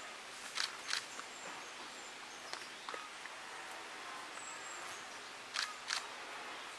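European water vole gnawing a plant stem held in its forepaws: a few crisp bites, coming in two quick pairs, one near the start and one near the end, over a steady outdoor hiss.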